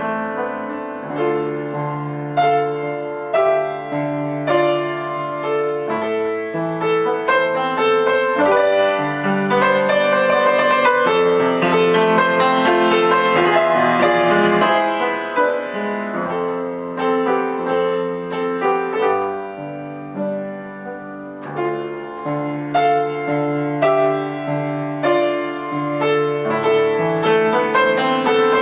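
Solo piano music: held bass notes under a moving melody, growing fuller and louder in the middle.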